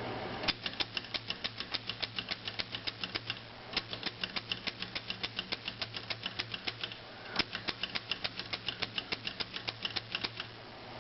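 Corona Four portable typewriter being typed at a steady pace, its type bars striking the platen several times a second in three runs with brief pauses between them, over a faint steady low hum.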